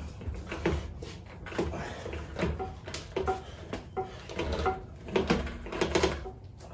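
A run of short creaks and squeaks as a stripped 1967 Pontiac Firebird is shoved along on small four-caster furniture dollies under its wheels. The casters and the car strain under each push.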